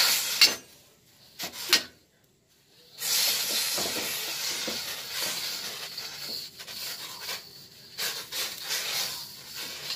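Stainless steel scrubber pad, pushed with a spatula, scraping and scrubbing the inside of a new steel wok through water. A few quick strokes, a brief stop about two seconds in, then steady scrubbing with small surges.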